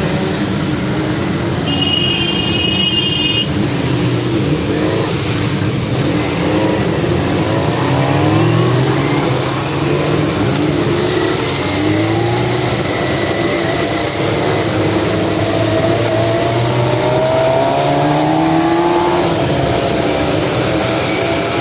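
Several motorcycle engines running and revving as a group rides along, their pitch rising and falling again and again over a steady rushing noise. A horn sounds for about a second and a half, about two seconds in.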